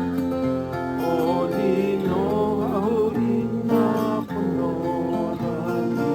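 Acoustic guitar strummed in accompaniment while voices sing a Hawaiian-language song, with a held, wavering sung line about a second in.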